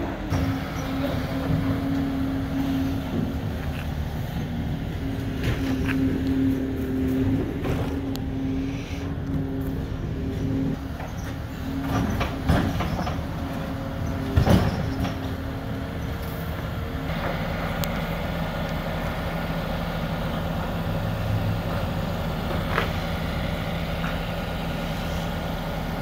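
Skid steer loader's diesel engine running steadily, with a couple of sharp knocks near the middle. About two-thirds of the way through the engine note drops and holds lower and steady.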